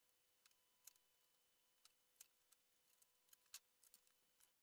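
Near silence: faint room tone with a faint steady hum and a few soft, scattered clicks, such as hands handling tape strips.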